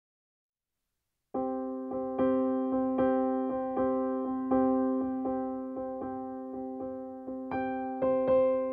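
Piano music that comes in about a second in after silence, with notes struck at an even, gentle pace.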